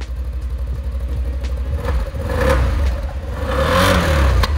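Can-Am Outlander 1000R ATV's V-twin engine idling, blipped twice with the throttle: pitch climbs and drops back about two seconds in, then again more strongly near the end. It is a brand-new machine running just after its first start.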